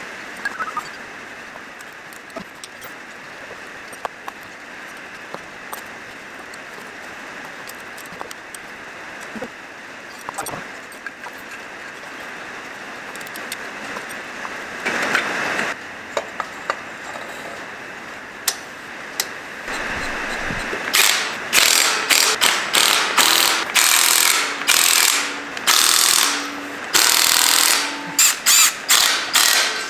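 Handheld cordless power tool driving fasteners on a turbocharger in many short, loud bursts, starting about two-thirds of the way in. Before that there are only light clinks of tools and parts being handled.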